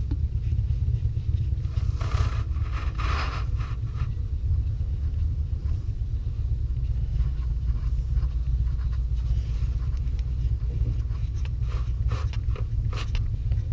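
A steady low rumble, with scraping and clicking of metal parts being handled about two seconds in and again near the end.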